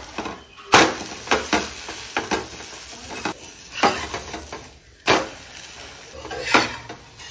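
Metal spatula scraping and knocking against a frying pan, lifting and turning a thin flour-batter flatbread (gola ruti): a series of irregular scrapes and knocks over a low sizzle from the pan.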